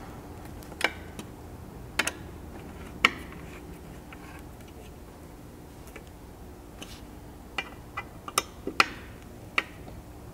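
Sharp clicks from a hand tool tightening the aluminum roof rack's mount bolts: three single clicks in the first few seconds, then a quicker run of clicks near the end.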